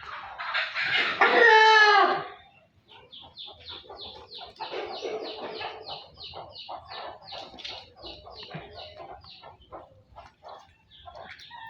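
A rooster crows loudly in the first two seconds. A fast run of short calls follows, about four a second, for several seconds.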